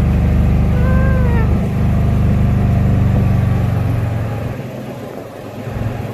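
Small gas golf cart engine running steadily as the cart drives along, the engine sound dying away about four seconds in. A short rising-and-falling tone sounds about a second in.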